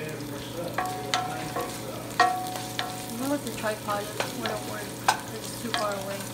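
Sliced onions sizzling in hot olive oil in a pot while being stirred with a wooden spoon, the spoon knocking against the pot several times, loudest about two and five seconds in, some knocks with a brief ring.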